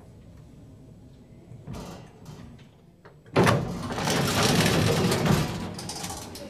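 Lift car's wooden doors being pushed open by hand: a few faint clicks, then a little over three seconds in a sudden loud noise of the doors moving, lasting about two seconds before it eases off.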